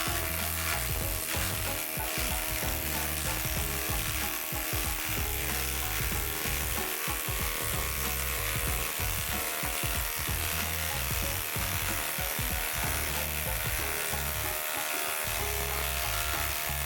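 Cordless impact driver hammering continuously as it drives a large lag bolt into OSB, a dense rattling buzz. Background music with a steady beat plays under it.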